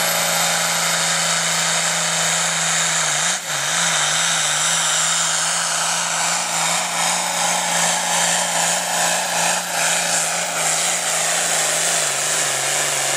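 International Harvester diesel pulling tractor under full load, hauling a weight-transfer sled. The engine runs flat out with a high turbo whine over it, dipping briefly twice.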